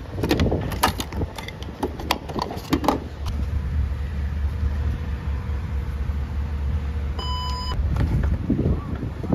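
Handling at a gas station fuel pump: a few sharp clicks as the car's fuel door is pressed open and the card is handled, over a low steady rumble. About seven seconds in, the pump gives one short electronic beep.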